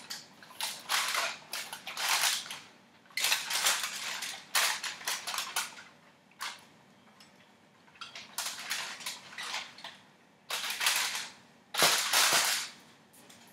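Aluminium foil crinkling and crackling in irregular bursts as a large whole fish lying on it is shifted and handled, loudest near the end.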